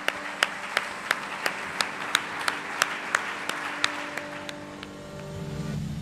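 Audience applauding over background music. The music has a steady ticking beat of about three ticks a second and held notes that stop shortly before the end.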